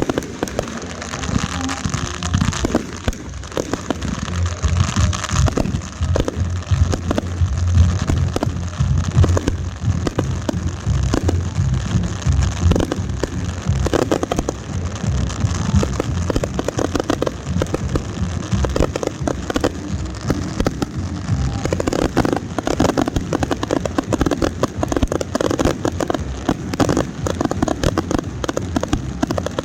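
Consumer fireworks finale going off in a dense, continuous barrage: rapid overlapping crackles and pops with heavy booms, the booms strongest in the first half.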